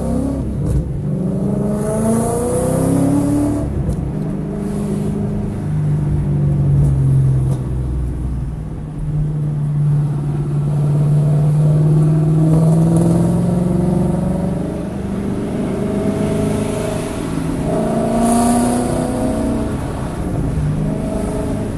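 Car engine running hard on track, revving up and down with a long steady stretch in the middle. The engine was misfiring in cylinders 1, 3 and 4 during this session, with the check engine light blinking.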